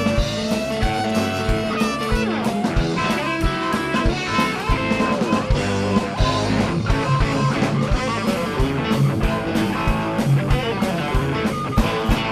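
Southern rock band playing live, with an electric guitar lead of bent and sliding notes over bass and a steady drum beat.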